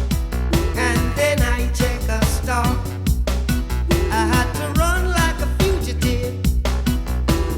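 Background music: a song with a steady beat, heavy bass and a wavering lead melody line.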